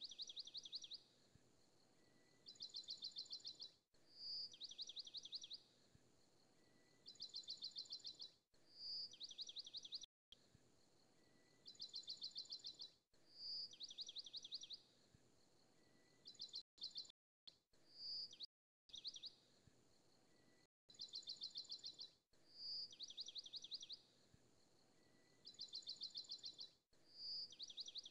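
Bird-like chirping: a clear high note followed by a quick trill, repeating at even intervals of about two seconds with the same shape each time, like a looped recording. The sound cuts out briefly a few times near the middle.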